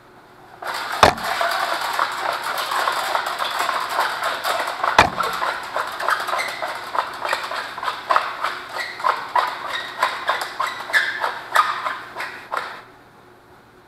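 Electrician's steel fish tape being run through its plastic reel by hand: a continuous rattling scrape full of quick clicks, with two sharp knocks about one and five seconds in. It stops abruptly near the end.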